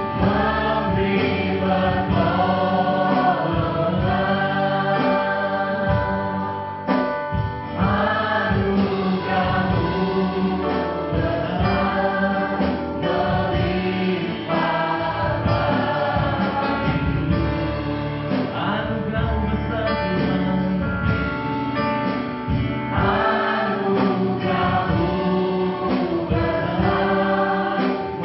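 Live gospel worship song in Indonesian, sung by several voices together over keyboard and band accompaniment with sustained chords.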